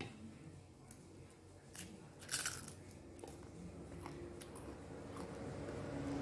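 A person eating a meal of rice and fish by hand: chewing with a few small clicks and crunches, the loudest a short crunch about two and a half seconds in. A low rumble builds near the end.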